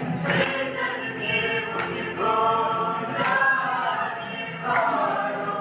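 A mixed choir of young men and women singing together, holding sustained notes in several parts.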